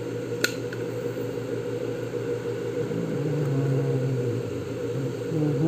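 Steady low mechanical whirring hum, with a single sharp click about half a second in.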